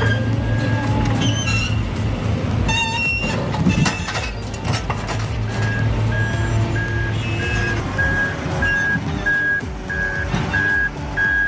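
Heavy vehicle engine running, with a reversing alarm beeping about twice a second from about halfway through, growing louder.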